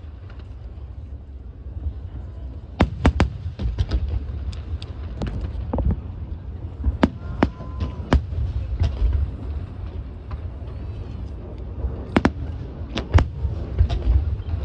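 Fireworks display: aerial shells bursting as a series of sharp bangs, several close together about three seconds in and again near the end, over a steady low rumble.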